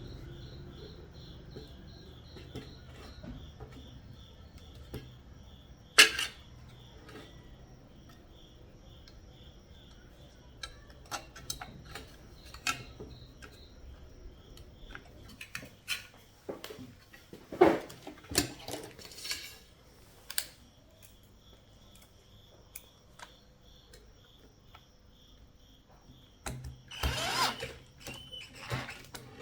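Scattered clicks and knocks of small tools and parts being handled during repair work, with a sharp knock about six seconds in, a cluster around the middle, and a brief busier burst with a low hum near the end. Crickets chirp steadily in the background.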